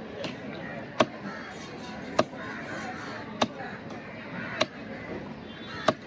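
Knife chopping through a diamond trevally: five sharp, evenly paced strokes, about one every 1.2 seconds.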